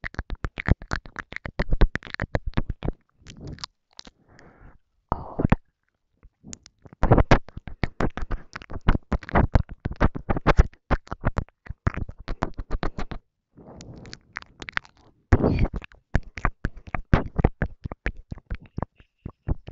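Close-miked ASMR mouth sounds: rapid wet clicks and smacks of tongue and lips in clusters, with short silent gaps and a few patches of soft breathy whispering without clear words.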